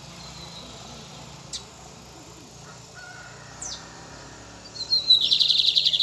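Caged lined seedeater (bigodinho) singing: two sharp, high, down-slurred notes, then, about five seconds in, a loud, fast, high trill of rapidly repeated notes, about ten a second.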